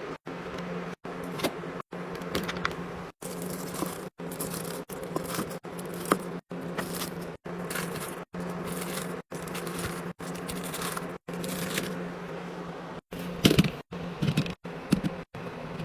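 Clicks, taps and rustles of things being handled over a steady low hum, chopped by brief gaps of silence about every half second. The clicks are louder and come in quick clusters near the end.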